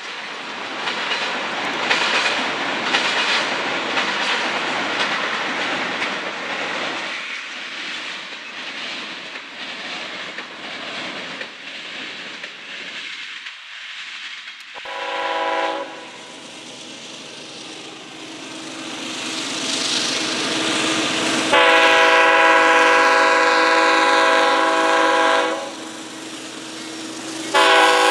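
Rail noise of a train rolling by, then a diesel locomotive's multi-note air horn sounds: a short blast about 15 seconds in, a loud long blast of about four seconds starting around 21 seconds in, and another short blast at the end.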